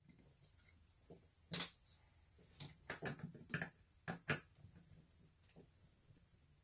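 Screwdriver working a screw held with thread locker out of a clock radio's plastic housing: a quick run of sharp clicks and creaks as the screw is forced round, between about one and a half and four and a half seconds in.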